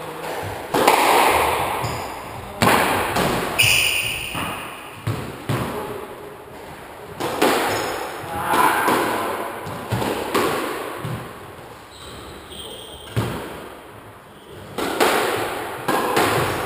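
Squash rally: the ball cracks off the walls and racket strings every second or two, each hit echoing around the enclosed court. Trainers squeak briefly on the wooden floor between shots.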